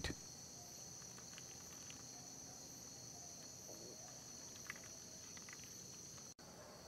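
Faint, steady chorus of night insects: a continuous high-pitched trill, with a momentary dropout near the end.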